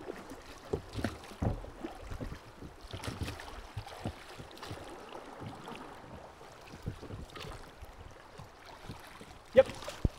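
River water lapping and gurgling against a drift boat's hull as it floats downstream, with many small knocks and splashes and one sharp knock near the end.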